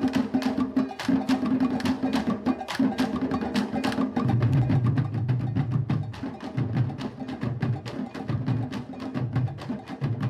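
Candombe drum ensemble (chico, repique and piano drums) playing together, with rapid stick strokes clicking on wood and drum heads over the drum tones. A deeper drum pattern joins about four seconds in.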